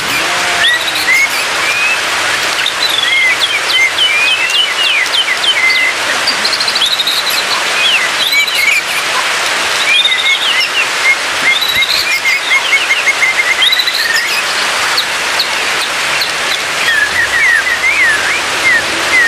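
White-rumped shama singing: a long, varied string of clear whistled phrases with quick up- and down-sliding notes and a fast trill of repeated notes about halfway through, over a steady hiss.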